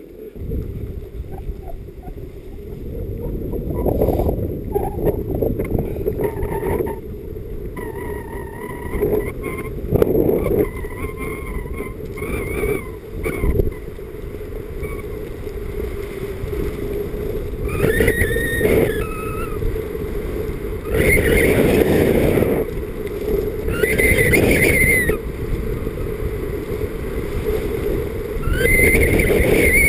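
Wind rumbling over a skier's camera microphone during a descent on a groomed piste, with the skis hissing and scraping on the snow. It swells several times into louder scraping rushes with a brief squeal, as in turns.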